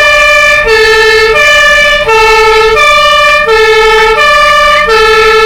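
German fire-engine two-tone siren (Martinshorn) wailing loudly, switching steadily between a lower and a higher note, each held for under a second. A low steady road and engine rumble from the driving trucks runs beneath it.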